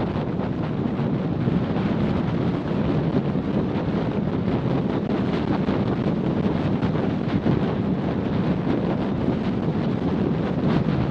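Wind rushing and buffeting over the microphone of a small action camera strapped to a macaw in flight: a steady, loud, low rush without a break.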